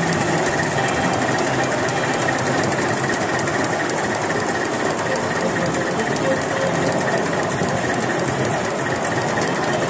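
Live-steam model of a BR Standard Class 4 tank locomotive running steadily under way, with a fast, even mechanical rhythm.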